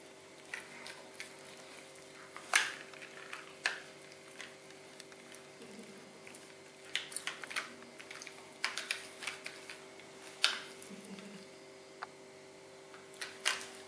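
Siberian Husky gnawing a rawhide bone: irregular sharp crunches and clicks, a second or a few seconds apart, over a faint steady hum.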